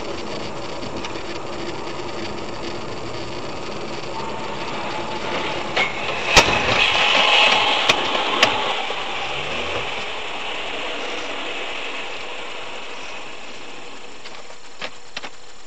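Steady road and engine noise heard inside a moving car. About six seconds in there is one sharp bang, followed by a couple of seconds of louder hiss and two smaller knocks.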